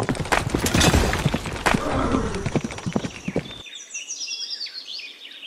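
Hoofbeats clip-clopping amid a busy noisy background, a dubbed sound effect, cutting off sharply about three and a half seconds in. Short high chirps follow near the end.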